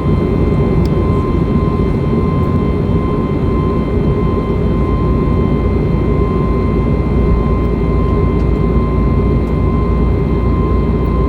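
Jet engines and rushing air heard inside the cabin of an Airbus airliner during its climb after takeoff: a loud, steady rumble with a thin, steady hum on top.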